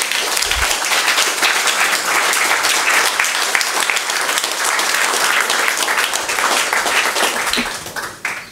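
Audience applauding: dense, steady clapping that thins out and fades near the end.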